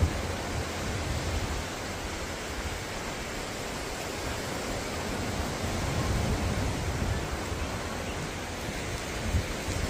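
Ocean surf breaking and washing up the beach: a steady rushing hiss over a fluctuating low rumble.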